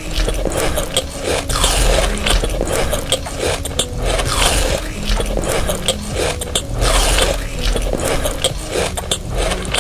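Loud crunching and scraping eating sounds: a dense run of crackles and clicks with a falling swoop every two to three seconds.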